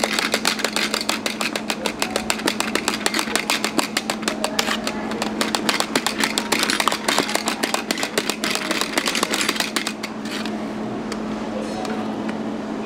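A rapid mechanical clatter, about ten ticks a second, over a steady low hum; the clatter stops about ten seconds in and the hum and a steady hiss carry on.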